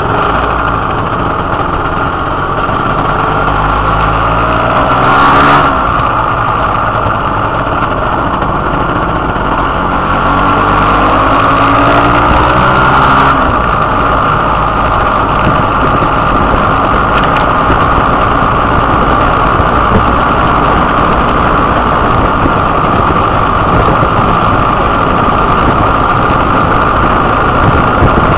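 Motorcycle engine heard from on board while riding, rising in pitch as it accelerates twice in the first half, each rise cut by a brief break, then running steadily at speed.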